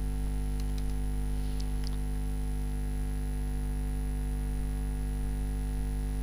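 Steady electrical mains hum with a low buzz and a ladder of overtones, unchanging throughout. A few faint clicks come in the first two seconds.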